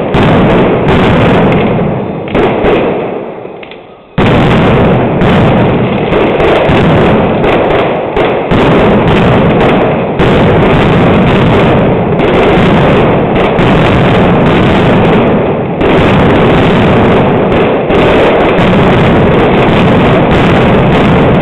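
Mascletà firecrackers (masclets and tracas) exploding in a rapid, continuous, very loud barrage. The blasts die down about two seconds in, then resume suddenly at about four seconds and keep going unbroken.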